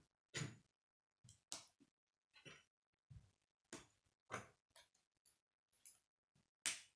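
Plastic K'nex rods and connectors clicking and snapping as they are handled and pressed together: a dozen or so short, irregular clicks, with louder snaps near the start and near the end.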